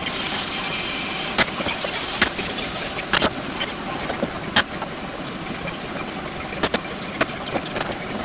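Food sizzling in a metal wok while a spatula stirs and scrapes through it, with sharp clicks as the spatula knocks against the pan about eight times at irregular intervals. The sizzle is loudest in the first half and eases off later.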